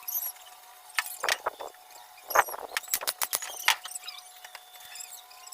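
Irregular sharp knocks and taps, the kind of wood-on-wood and tool strikes made while fitting a plywood door frame, with a cluster of them in the middle.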